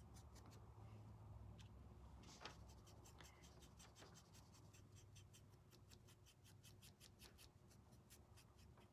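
Faint, irregular ticks and scratches of a small paintbrush working paint onto a wooden cutout, over a low steady hum.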